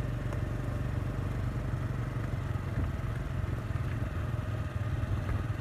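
Small motorbike engine running steadily while riding along a gravel track, heard as a low, even rumble.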